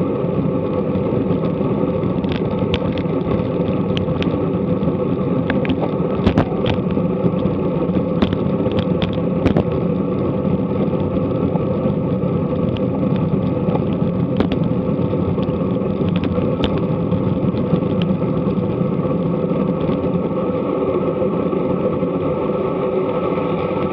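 Steady road and wind rumble picked up by an action camera mounted on a road bicycle riding along, with scattered light clicks and ticks from the bike, mostly in the first half.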